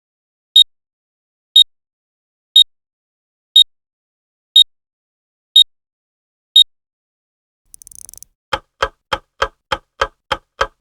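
Clock ticking, one sharp tick a second, seven times. Near the end a different effect follows: a faint brief hiss, then a quick run of about nine clicks, roughly three a second.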